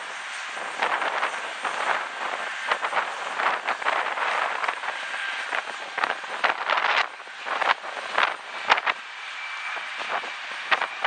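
Twin-engine Embraer E-Jet regional airliner's jet engines running as it touches down and rolls out on the runway, a rough, steady noise with faint whining tones. Irregular gusts of wind buffet the microphone throughout.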